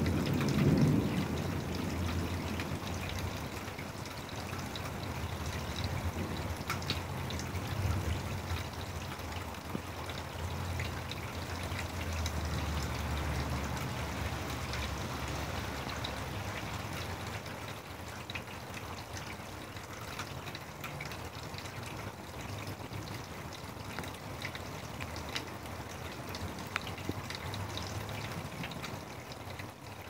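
Steady rain during a thunderstorm, with many close drops ticking throughout. A low rumble swells near the start and again around the middle.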